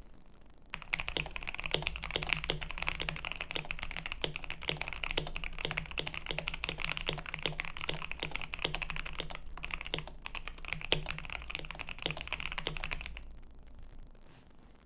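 Continuous typing on a KBD67 Lite R2 mechanical keyboard with lubed Gateron Black Ink V2 linear switches, a PC plate, PBT keycaps and a PE foam and tape mod: a dense run of keystrokes. It starts about a second in, pauses briefly past the middle, and stops a couple of seconds before the end.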